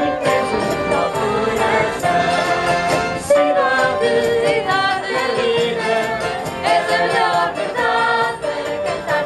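Live folk group performance: several women's voices singing together over guitars, violin and keyboard.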